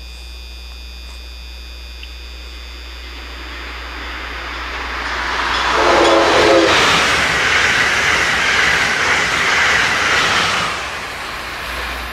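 Amtrak Acela Express high-speed electric trainset approaching and passing at speed: a rush of wheel and wind noise swells, stays loud for several seconds, then fades near the end. A short horn blast sounds about halfway through, as the train comes close.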